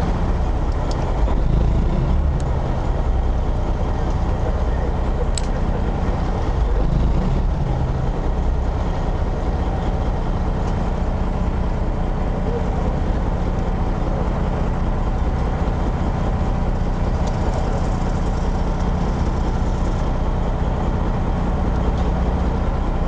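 Boat engine running at a steady, even drone, with one sharp tick about five seconds in.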